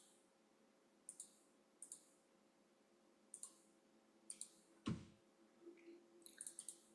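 Faint, scattered clicks, mostly in pairs, with one duller knock about five seconds in and a quick run of clicks near the end.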